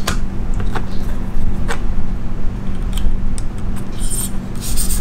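A few separate clicks and light metal taps as the KME sharpener's rotating knife clamp is turned over and the stone's guide rod is set on the blade. About four and a half seconds in, the diamond stone starts rasping along the knife edge. A steady low hum runs underneath.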